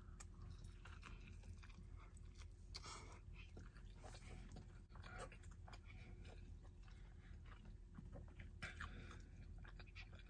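Faint close-up chewing of a mouthful of burrito: irregular soft wet mouth sounds, a few a little louder than the rest.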